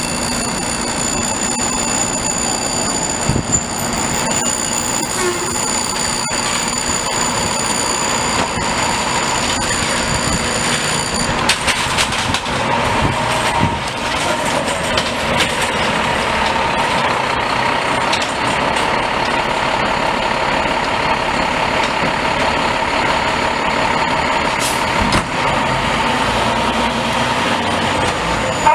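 A fire engine's diesel engine running as the rig rolls out, with a steady high-pitched tone over roughly the first eleven seconds.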